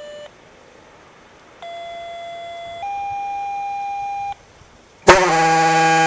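Quick Call II two-tone sequential paging tones, two steady beeps in turn, the second slightly higher: the tone set that trips the relay to activate the horn. About a second later the Gamewell diaphone fire horn blasts on, far louder, with a brief rise in pitch at the start and then a low, steady blast.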